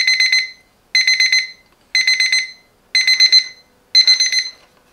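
AURIOL digital alarm clock's alarm going off: short groups of rapid high-pitched beeps, one group about every second.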